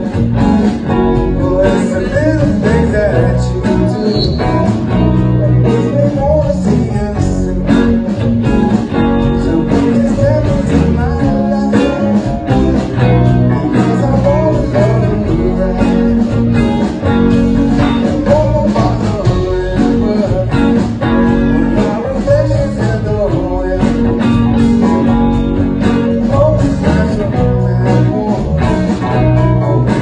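A live blues band playing, electric guitar among the instruments.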